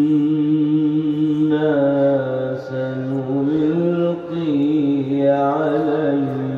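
A man reciting the Quran in a melodic, chanted style, holding one long unbroken phrase whose pitch rises and falls in slow ornamented turns, amplified through a microphone.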